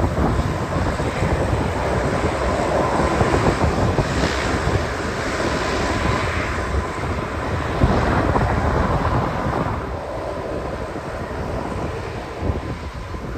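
A fixed-wing aircraft's engines running as a steady rush with a faint held tone, strongest around the middle and easing off near the end. Wind buffets the microphone.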